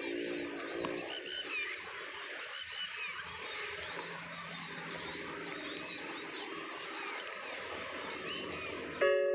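Birds chirping over a low steady hum, with a droning tone fading in the first second. Near the end a sudden, louder two-tone sound cuts in.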